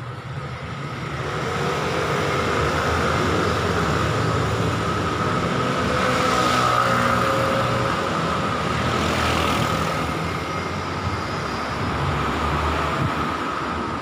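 Street traffic: motor scooters and cars pulling away from a traffic light and driving past. The engine sound builds about a second in, and passing vehicles swell twice around the middle.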